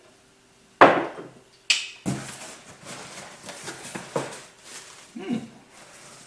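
A sharp knock, then crinkling and rustling of crumpled newspaper packing being pulled out of a cardboard box.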